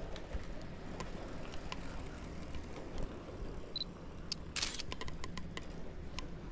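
Steady street background, then about four seconds in a short electronic beep followed by the click of a FUJIFILM X100V compact camera's shutter as a photo is taken.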